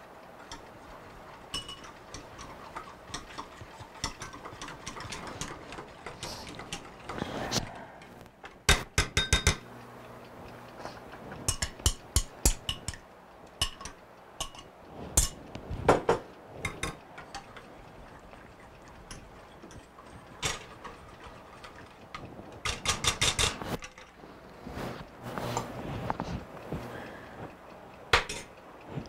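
Wire whisk clicking against the sides of a stainless steel saucepan as a thin pudding base is stirred, with single knocks and two spells of quick, even strokes.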